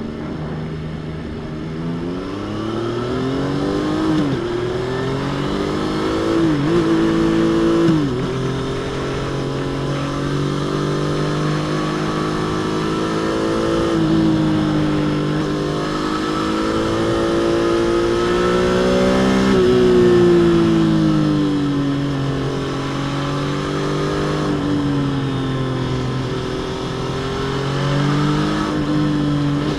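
Triumph Trident 660's stock inline-three engine and exhaust accelerating on the road. The pitch climbs and drops sharply at quick upshifts a few seconds in and again about eight seconds in. Then comes a long climb that eases off after about twenty seconds, and more gentle rises and falls follow.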